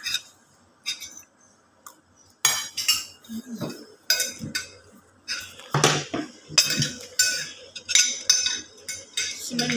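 Utensils clinking and scraping against an aluminium pot and a glass bowl as rice is served. It is quiet at first, then a string of sharp, ringing clinks starts about two and a half seconds in.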